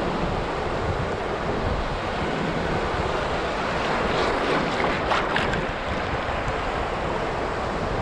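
Small Baltic Sea waves washing in at the shoreline, with wind buffeting the microphone: a steady rushing hiss that swells a little about halfway through.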